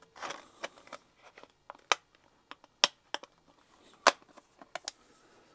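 Clear plastic Blu-ray case being handled and opened: a string of sharp clicks and taps, the loudest about three and four seconds in, with a brief rustle near the start.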